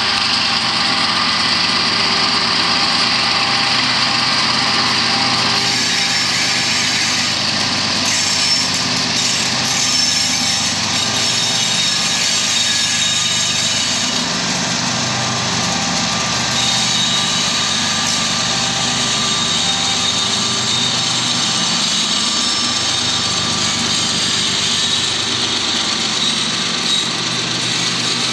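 Loaded coal train passing close by: diesel locomotive engines running steadily, with a mid-train distributed-power locomotive going by about halfway through, then loaded coal hopper cars rolling past on the rails.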